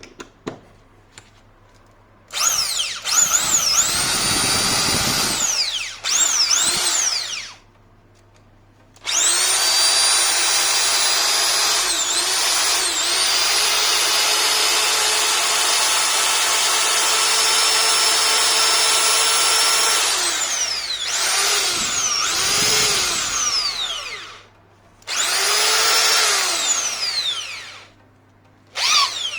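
Repaired electric drill's brushed motor run in several bursts on the trigger. Each run whines up to speed and falls in pitch as it slows, and the longest holds steady for about fifteen seconds in the middle.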